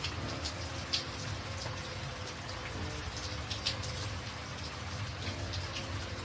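Steady rain with many separate drops ticking as they hit a surface.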